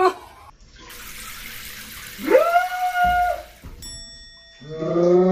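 Kitchen faucet running water into the sink for a few seconds.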